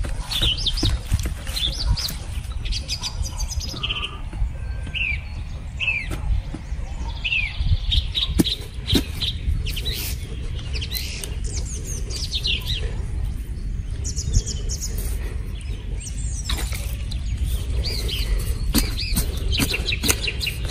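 Birds chirping in many short, quick notes, over occasional dull strikes and scrapes of a hoe digging into dry soil. A steady low rumble runs underneath.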